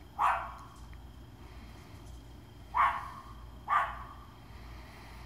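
A dog barking: three short barks, the last two less than a second apart.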